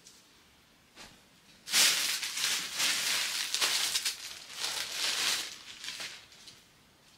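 Thin plastic bag crinkling and rustling as it is handled to get clothes out. It starts suddenly a little under two seconds in and stops about a second before the end.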